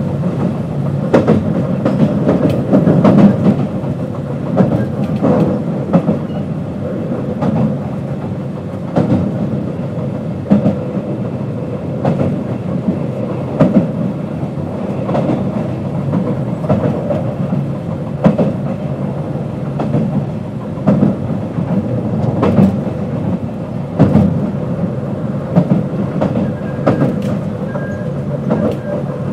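JR West 221 series electric train running at speed, its wheels clicking sharply over rail joints every second or so over a steady running hum.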